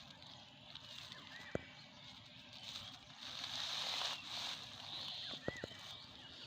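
Rustling and crinkling of plastic litter and dry debris being handled and pulled from the ground, with a few sharp clicks. The rustle is loudest a little past the middle.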